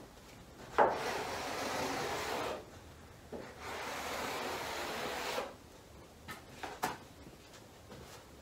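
Hand spreader scraping body filler across a steel truck hood in two long strokes of about two seconds each; the first stroke starts with a sharp knock as the spreader comes down. A few light taps follow near the end.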